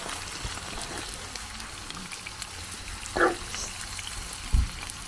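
Steaks and eggs sizzling in a frying pan on a portable gas barbecue: a steady crackling hiss. A short sound breaks in about three seconds in, and a low thump comes shortly before the end.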